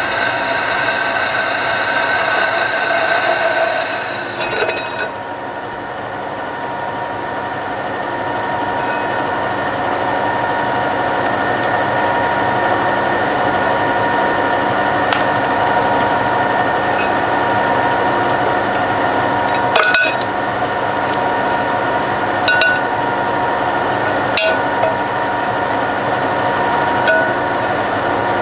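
Drill press running steadily with a whine at several fixed pitches while the bit cuts a hole in a metal disc, with a few sharp clinks in the second half.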